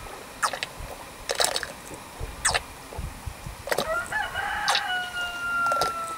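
A rooster crows once about four seconds in, ending in a long held note. Under and before it come short sharp sounds about once a second as a cow drinks from a water trough.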